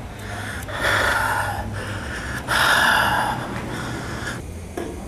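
Two long, breathy gasps from a person, one about a second in and another about two and a half seconds in, over a low steady hum.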